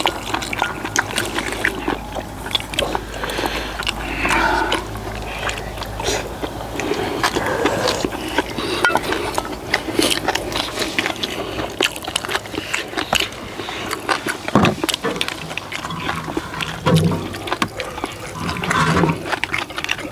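Close-miked eating: chewing and slurping of spicy stir-fried webfoot octopus, with spoons clinking and scraping against stainless steel bowls, many short clinks throughout.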